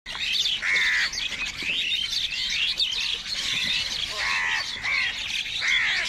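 A flock of house crows cawing over one another in a dense, unbroken chorus of harsh, overlapping calls, as they squabble over food.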